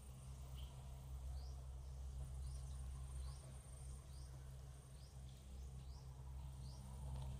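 Outdoor ambience: short, high, rising chirps recurring about once a second over a steady low hum.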